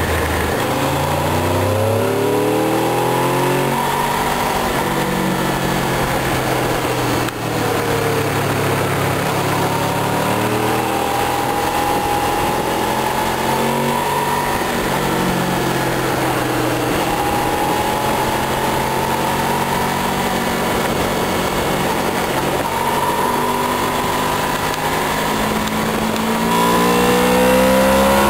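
Honda VFR800 Interceptor's V4 engine running at road speed. The revs climb over the first couple of seconds, then hold fairly steady with gentle rises and falls, and climb again, louder, near the end as the bike accelerates. A steady rush of wind noise runs underneath.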